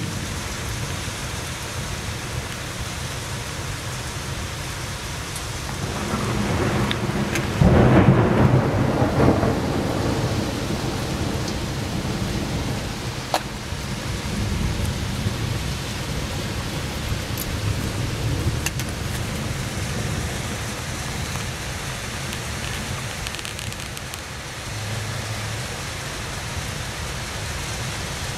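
Steady rain falling in a thunderstorm, with a peal of thunder building about six seconds in, loudest about two seconds later, then rumbling away over the next few seconds.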